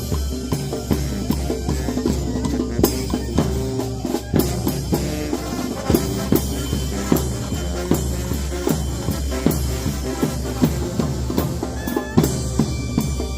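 Banda tromba sinaloense playing live: brass over a steady drum beat of bass drum and snare strikes.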